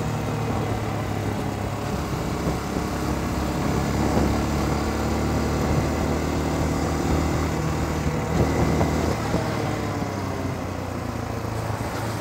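Dirt bike's engine running at low speed in traffic, heard from the rider's position, its pitch shifting a few times as the throttle changes.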